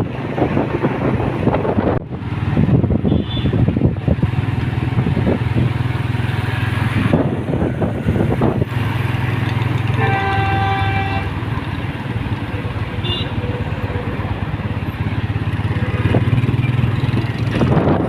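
Street traffic with engines running steadily, and a vehicle horn sounding once for about a second and a half roughly ten seconds in.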